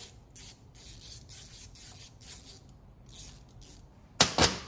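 Socket ratchet clicking in short runs, roughly two or three a second, as a bolt is backed out of a classic VW generator's end plate. Two sharp knocks about four seconds in are the loudest sounds.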